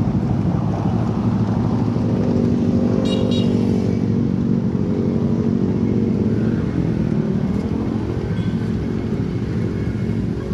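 Motorcycle engine running steadily under a heavy road rumble, with two quick high beeps about three seconds in.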